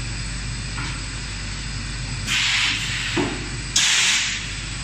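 Silicone rubber extrusion line running with a steady machine hum. About two seconds in, and again about four seconds in, there is a short, loud hiss.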